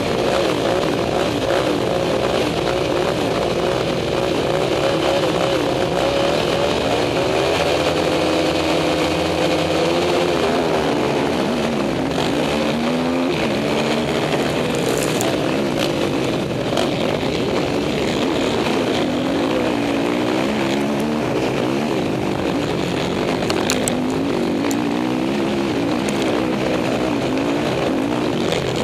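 Racing quad bike engines heard from on board one of the quads, revving up and down as they race in a pack, the pitch rising and falling with the throttle.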